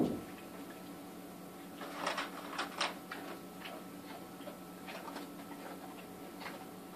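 Tissue paper and a small plastic spider shipping vial being handled: short rustles, scrapes and light clicks, with a knock at the start and a busier patch about two to three seconds in, over a steady low hum.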